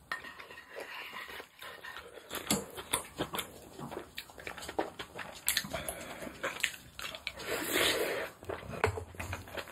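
Close-miked eating sounds: wet chewing and lip smacks over a mouthful of rice mixed into pork back-bone stew (gamja-tang), heard as an irregular run of short clicks and smacks.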